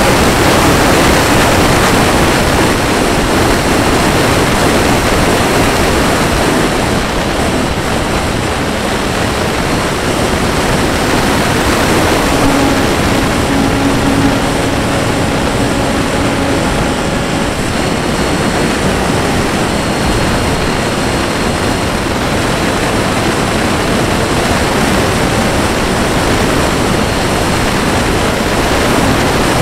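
Onboard sound of an electric ducted-fan Mirage 2000 model jet in low, fast flight: a loud, steady rush of wind over the airframe and camera microphone, mixed with the fan's hiss, and a faint tone briefly coming and going about halfway through.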